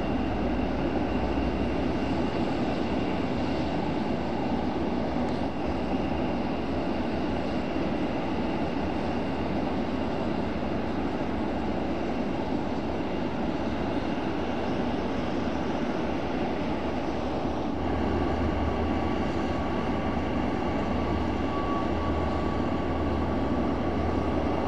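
Twin turboprop engines of a Beech MC-12S Huron running steadily: a constant whine over a broad rush. About three-quarters of the way through, a new higher tone joins the whine and the low hum grows louder.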